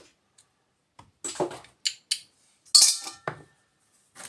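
Small pieces of scrap metal clinking as they are tossed one by one into sorting buckets: about six separate clinks, the loudest a little under three seconds in with a short metallic ring.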